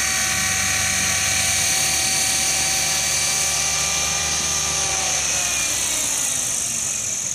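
Blade 500 electric RC helicopter's motor and rotor running with a high whine, sitting on the ground after landing. About halfway through, the pitch starts to fall as the rotor winds down.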